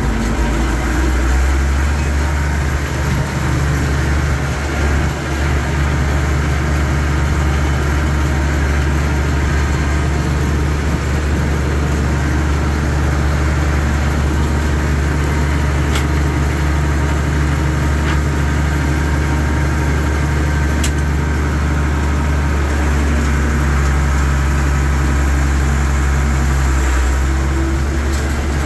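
Allis-Chalmers 190 XT Series 3 tractor's turbocharged six-cylinder diesel running steadily as the tractor drives along a gravel road, heard from inside the cab.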